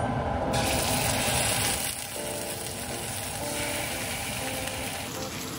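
Thick beef steaks hitting a hot, oiled stainless steel frying pan, which starts to sizzle suddenly about half a second in and then sizzles steadily as the meat sears.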